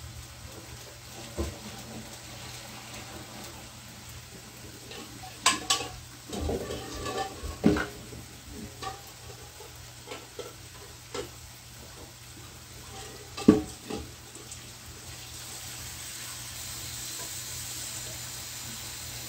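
Hot water being poured off boiled eggs and cold water run onto them: a pot knocking and clattering against the sink and stove in scattered knocks, the loudest about two-thirds of the way in. A steady hiss builds near the end.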